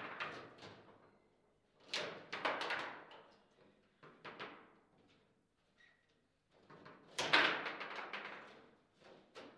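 Table football in play: the hard ball clacking off plastic player figures, with the rods knocking against the table. It comes in several bursts of rapid clacks, the loudest about seven seconds in.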